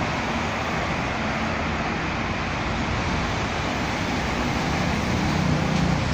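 Steady outdoor background noise of road traffic, with a low hum that grows a little louder near the end.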